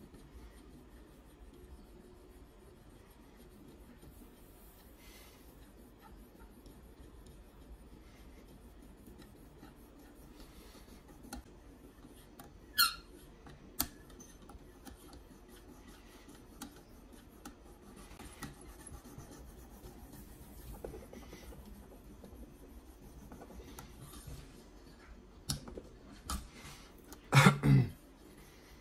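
Sharpening stone on a KME guided-rod sharpener drawn over and over along the edge of a clamped CPM 20CV steel knife blade, a faint rubbing scrape. There are two sharp clicks about halfway through and a louder knock near the end.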